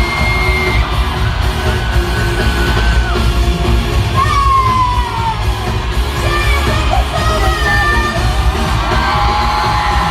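Live K-pop concert heard from the crowd: loud amplified music with heavy bass, with fans yelling, whooping and singing along.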